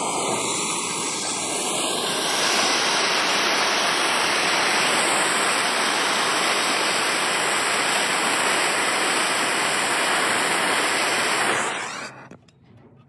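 Handheld gas torch burning with a steady hiss, heating the copper-to-brass joint of a hose bib for soldering. The hiss cuts off near the end, as the solder is fed to the joint.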